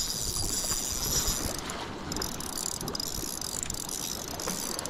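Spinning reel being cranked, its gears giving a high whir that pauses briefly a little under two seconds in, then runs on. A low rumble of wind and sea lies underneath.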